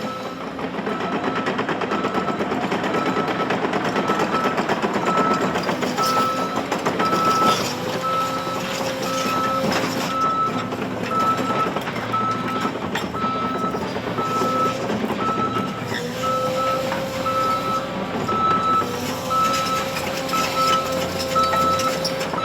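Backup alarm beeping steadily, about two beeps a second, over a heavy diesel engine running under load.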